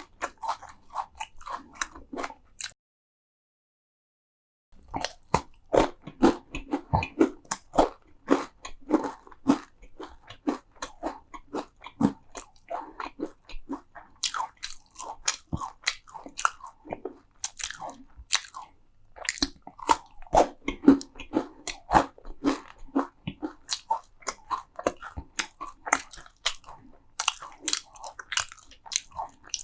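Close-miked eating: crunchy bites and steady chewing of crisp food, with many sharp crackles. The sound cuts out completely for about two seconds soon after the start.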